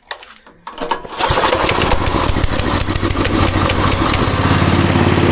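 Honda GX200-clone single-cylinder small engine starting, catching about a second in, then running steadily with a fast, even beat.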